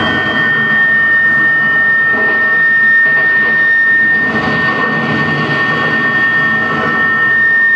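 Live electronic noise music: a dense, rumbling synthesizer drone with one steady high tone held above it.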